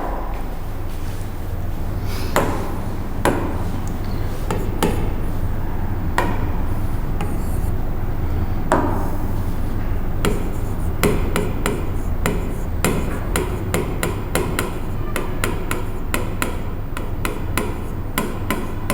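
Writing on a classroom board: runs of sharp taps and short scratches, sparse at first and then quick and dense in the second half, over a steady low hum.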